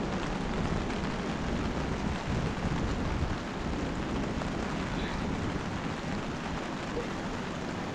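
Wind buffeting the microphone outdoors: a steady rushing noise with a heavy low rumble.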